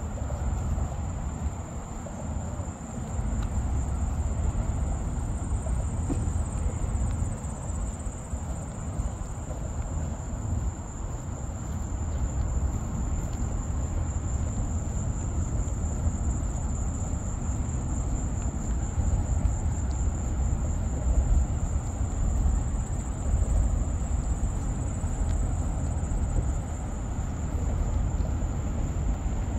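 A steady, high-pitched chorus of summer insects runs throughout, pulsing slightly. Under it is a continuous low rumble.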